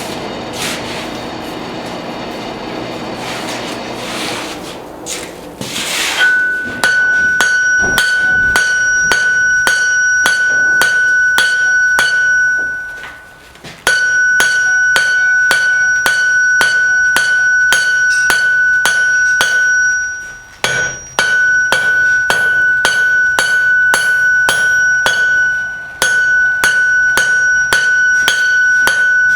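A rough scraping noise for about six seconds, then a hand hammer striking hot steel on an anvil at about two blows a second. Each blow sets off a steady high ring from the anvil, and the blows come in runs with short pauses between them, as is usual when forge-welding and shaping the barbed-wire bundle.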